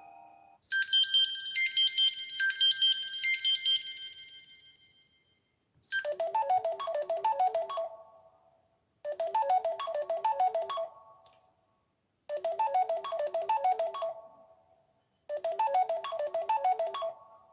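Stock ringtones of a Samsung Galaxy Tab 3 Lite tablet playing from its own speaker. First comes a bright, high chime melody that fades out after a few seconds. Then a second ringtone starts, a short two-second phrase with a ticking beat that repeats four times with brief gaps.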